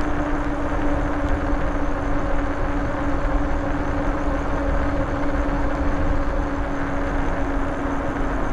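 Rad Rover fat-tyre e-bike riding steadily at about 15 mph: a steady whine from the bike's drive over rushing wind and road noise.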